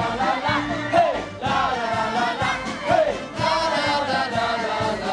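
A mixed group of men and women singing a popular street-march (marcha) song together, with band accompaniment keeping a steady beat.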